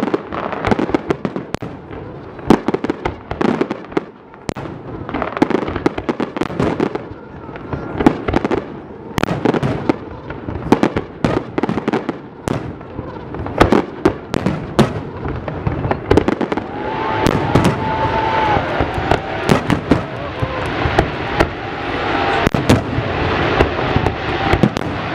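Fireworks salute: aerial shells bursting in quick, irregular succession, dozens of sharp bangs one after another. In the last several seconds the bangs merge into a denser, more continuous crackle and rumble.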